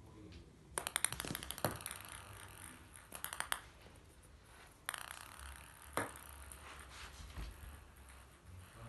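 A cat playing on a wooden floor: bursts of rapid rattling clicks, three runs of them, with a single sharper knock about six seconds in.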